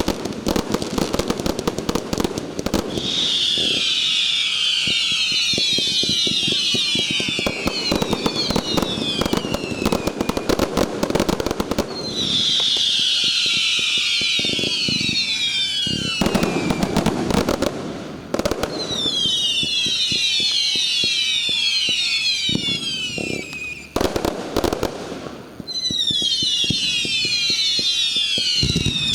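Aerial fireworks display: a dense, continuous crackling and banging of shells. Four times, a cluster of high whistles slides down in pitch over a few seconds.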